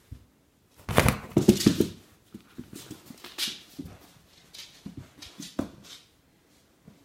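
Husky puppy vocalizing in short bursts while tussling with a plush toy, loudest about a second in, with scuffling and scrabbling on a tile floor.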